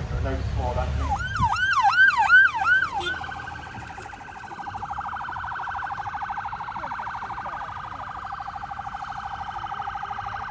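Electronic vehicle siren: about five quick rising-and-falling whoops, the loudest part, then a fast steady warble that keeps going.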